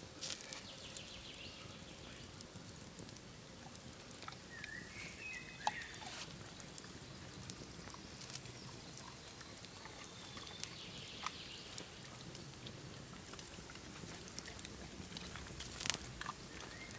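Campfire crackling with scattered small pops and a few louder snaps, with a brief run of high chirps about five seconds in.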